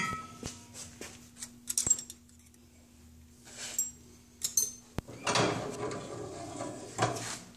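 Light metal clinks and clatter as an axle shaft is worked loose from a GM 8.5-inch 10-bolt rear end, then a sharp knock about five seconds in and a scraping rush of about two seconds as the shaft slides out of its axle tube.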